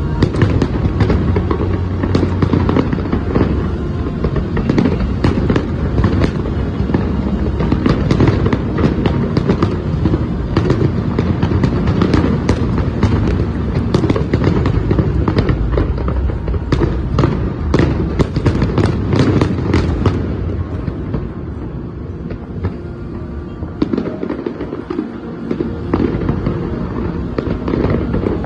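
A large aerial fireworks display: many rapid sharp bangs over a continuous low rumble. The bangs are densest about two-thirds of the way through, ease off briefly, then pick up again near the end.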